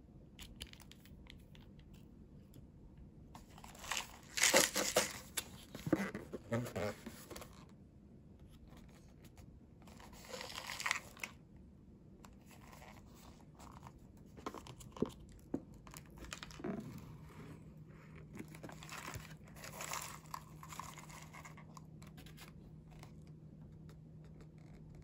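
Close-up crinkling and tearing of the plastic wrap and sachet of a Nissin Cup Noodle cup as it is handled and the lid is peeled back. It comes in several bursts, the loudest about four seconds in.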